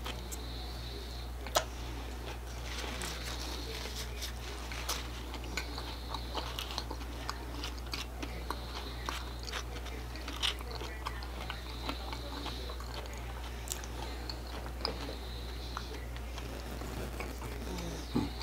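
A person chewing a crunchy hard-shell taco with the mouth, with many small crunches and clicks scattered throughout.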